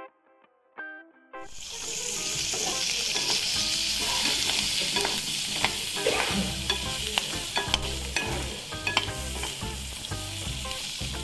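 Food sizzling hard in a hot pan, starting about a second and a half in, with a utensil stirring and scraping against the pan in frequent sharp clicks. Plucked guitar music is heard just before the sizzling starts.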